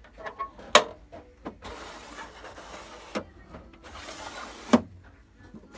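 Refrigerator fittings being handled: two stretches of scraping as parts slide, and three sharp knocks, the loudest about a second in and another near the end.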